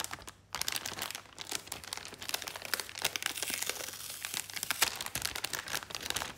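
Anti-static plastic bag crinkling and crackling as it is handled and opened, after a brief pause about half a second in.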